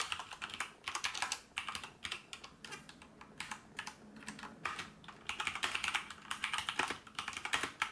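Typing on a Corsair K65 LUX RGB compact mechanical keyboard with Cherry MX Red linear switches: a quick, irregular run of keystrokes, the keys bottoming out with short clacks.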